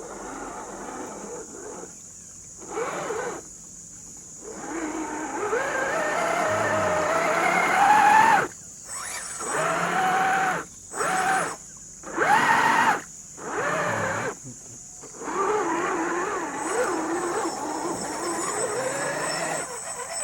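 Small electric motor and gearbox of an MN128 RC crawler whining under throttle, the pitch rising and falling with speed. Its pitch climbs steadily before the first stop, then it cuts off and restarts in several short bursts.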